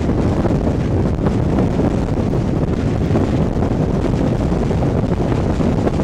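Steady wind rush buffeting the microphone held out of the window of a moving train, just behind its Class 67 diesel locomotive, with the running noise of the train underneath.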